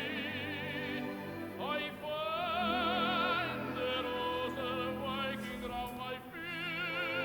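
Operatic tenor singing with a wide vibrato, holding long notes and sliding up between them, over an orchestra.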